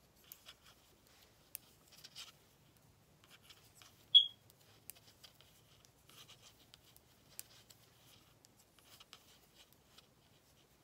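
Small knitting needles clicking and scraping faintly and irregularly as stitches of cotton yarn are purled. A single short, sharp, high-pitched ping about four seconds in is the loudest sound.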